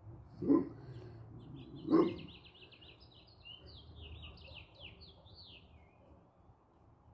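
A dog barks twice, loud and short, about half a second and two seconds in, while a songbird sings a quick run of high chirping trills that fades out after about six seconds.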